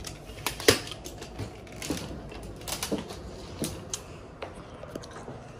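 Irregular clicks, knocks and rattles of a soft-sided wheeled suitcase being handled, its telescopic handle being worked, with the sharpest click about two thirds of a second in.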